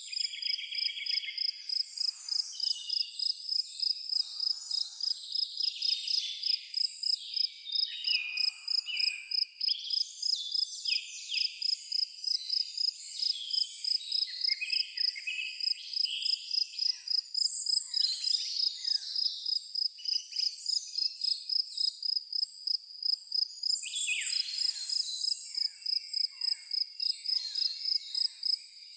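A cricket chirping in an even, high-pitched pulse about twice a second, with several birds singing varied phrases over it.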